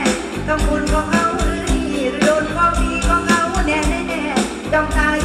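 Amplified live Thai Isan-style pop music with a steady drum beat and a woman singing.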